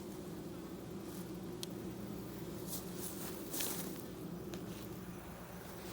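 Honeybee colony in an open nucleus hive buzzing loudly as a steady, even hum. This is the raised roar of a colony left queenless for a day that has not yet settled to its returned queen. A few brief faint clicks sound over it, the sharpest a little past halfway.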